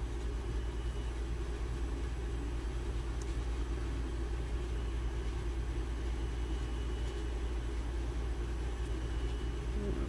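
Steady low background hum with a light hiss, unchanging throughout; no distinct event.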